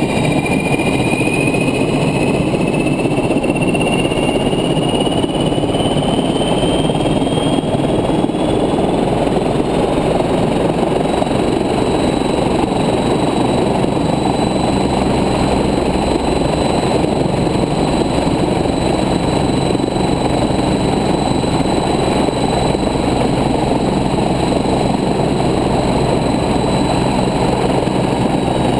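Agusta twin-turbine helicopter running on the ground, a loud steady engine and rotor noise. A high turbine whine climbs in pitch over the first several seconds, then holds steady as the engine settles at speed.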